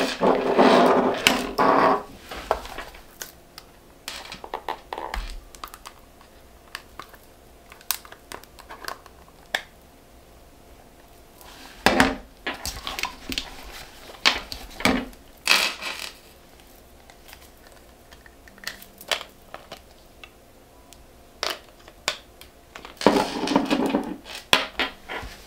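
Makeup packaging handled on a tabletop: scattered clicks and taps of plastic compacts and bottles being opened, picked up and set down. A few longer spells of rustling come at the start and near the end.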